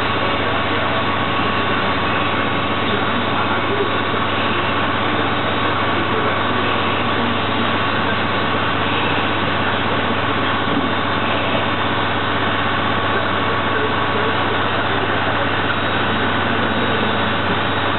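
Haas TL-3 CNC lathe running steadily while machining, with a constant low hum and a steady higher tone over the noise of the cut.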